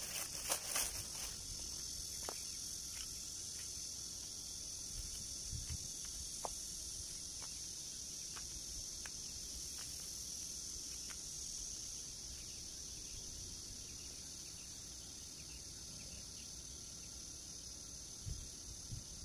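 Steady high-pitched insect chorus with scattered faint clicks. A plastic bag rustles briefly at the very start.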